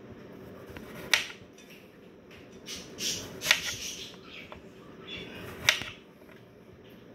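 Chef's knife cutting a cucumber into pieces over a plastic cutting board: three sharp taps about two seconds apart, with softer slicing and rustling between.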